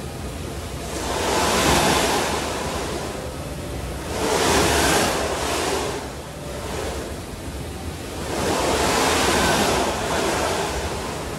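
Snowboard sliding and turning on an indoor revolving slope simulator: a rushing scrape that swells and fades three times as the board edges through turns, over a steady low rumble.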